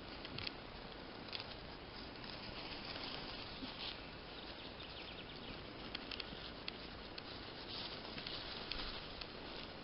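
Spring forest ambience: a steady hiss with scattered faint ticks and rustles.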